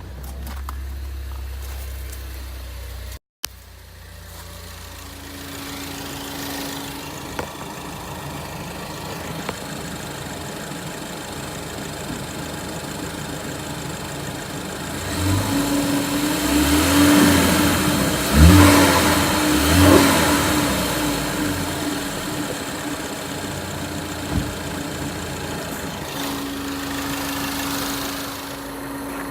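2013 Ford Focus ST's turbocharged 2.0-litre four-cylinder engine idling, then revved several times in the middle before settling back to idle. Under it runs a steady high-pitched noise from the lower left side of the engine that gets louder with rpm, which the owner takes for an idler bearing or valve train noise.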